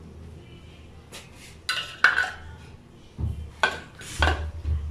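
Steel kitchen knife and steel plate clinking and knocking together as potato cutlet mixture is cut and handled, a string of sharp clinks with a few duller knocks starting a little under two seconds in.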